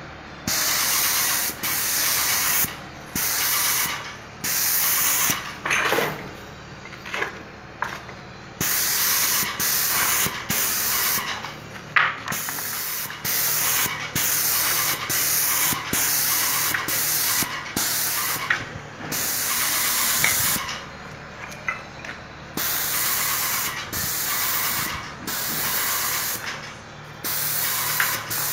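Vonder MPA 120 airless paint sprayer spraying undiluted acrylic sealer through a 517 tip at about 1,800 psi. A loud hiss comes in repeated bursts of one to two seconds as the gun trigger is pulled and released, with a low steady hum underneath.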